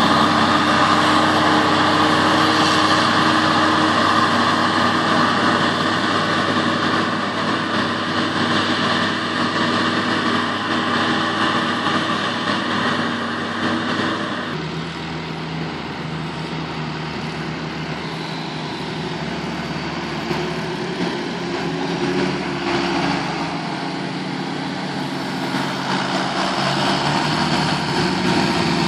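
A self-propelled forage harvester and its tractor running steadily while chopping maize for silage. About halfway through, the sound changes abruptly to a nearer John Deere tractor engine running steadily at a lower pitch.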